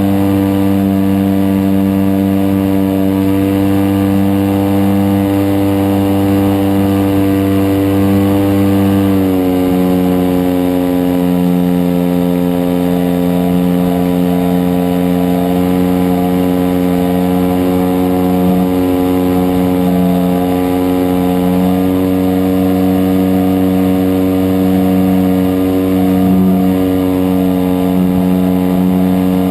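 DLE 55cc single-cylinder two-stroke gasoline engine of a large radio-controlled Cessna 182 model running steadily at high power. About nine seconds in, its pitch drops a little as the throttle is eased back, then holds steady.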